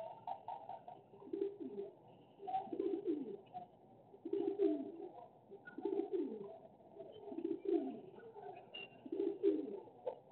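A pigeon cooing: a low phrase ending in a falling glide, repeated six times about every one and a half seconds.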